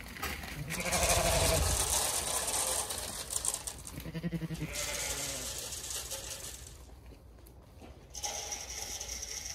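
Zwartbles ewes bleating for their feed: a longer call about a second in and a shorter one about four seconds in, over a rustling hiss as feed is tipped from a bucket.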